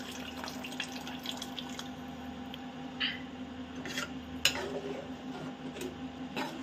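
Tamarind water pouring and splashing into a pan of curry, then a perforated metal ladle stirring the liquid, with a few short clinks against the aluminium pan.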